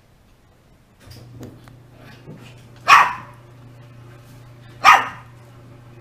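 Shiba Inu barking twice, two loud single barks about two seconds apart, over a low steady hum that starts about a second in.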